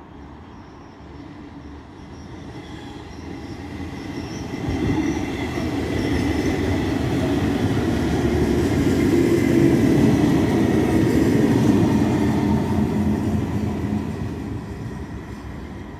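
SBB Domino regional multiple unit running into the station past close by: wheels rumbling on the rails with a thin, steady high squeal. It grows louder over the first half, is loudest past the middle, and fades toward the end.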